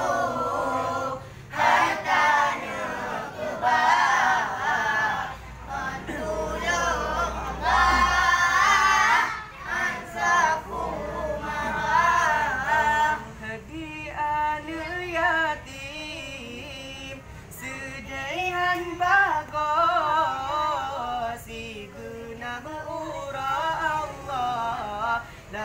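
A group of voices chanting zikir together, unaccompanied, in long melodic phrases with short breaks between them.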